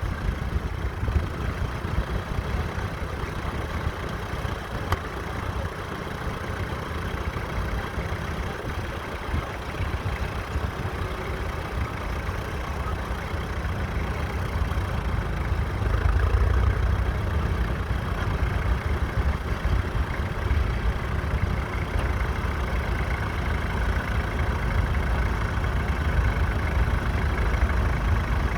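Fordson Model N tractor's four-cylinder engine running steadily, growing a little louder a little over halfway through.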